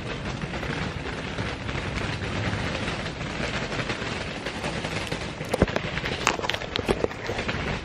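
Steady rushing noise on a handheld camera's microphone while walking, with a few sharp knocks from the camera being handled, about five and a half to seven seconds in.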